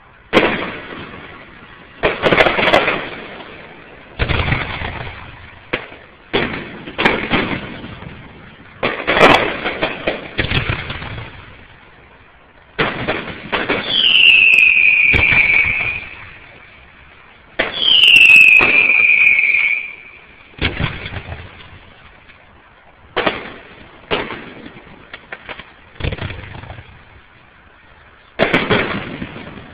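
Aerial fireworks bursting one after another, a sharp bang every second or two, each trailing off in echo. Near the middle, two long whistles fall in pitch, each about two seconds long.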